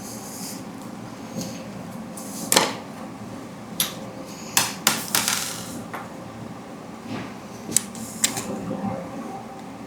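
Scattered clicks and light knocks of parts and tools being handled and fitted on a Prusa MK4S 3D printer, the sharpest about two and a half seconds in and a quick cluster around the middle.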